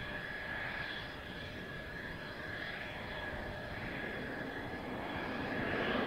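Mitsubishi F-2A fighter's single F110 turbofan at low taxi power: a steady high-pitched whine over jet noise, growing louder near the end as the jet comes closer.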